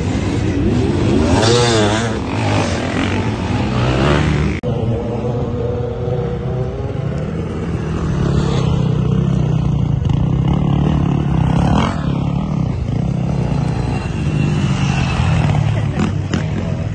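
Several dirt-bike engines revving together as the bikes pull away, their pitch swinging up and down. After a sudden cut about four and a half seconds in, a single dirt bike runs along a gravel track, its engine note rising once as it comes past.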